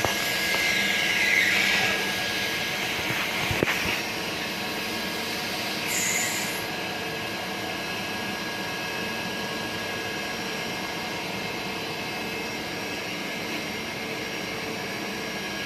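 CNC machine running while machining a brass shaft, a steady whine of several tones. A falling whine over the first two seconds, a sharp click a little over three seconds in, and a short high hiss about six seconds in, then steady running.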